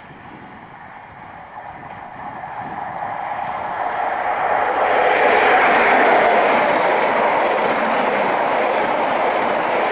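InterCity 125 High Speed Train approaching and passing close by: the sound builds steadily over the first five seconds as the leading class 43 power car nears, then holds loud and even as the Mk3 coaches roll past.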